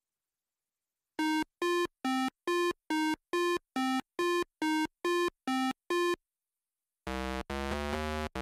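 8-bit, video-game-style synthesizer sounds: a run of about twelve short beeps, a little over two a second, then after a short pause a buzzier sustained synth pattern starts about seven seconds in.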